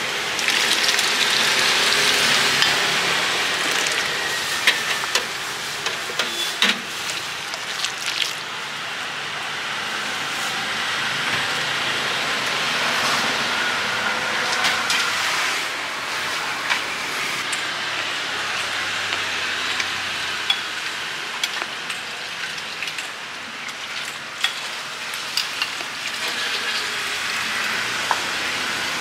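Steady hiss and bubbling of broth boiling in large steaming stock pots, with scattered clinks of a metal ladle against the pot and bowls.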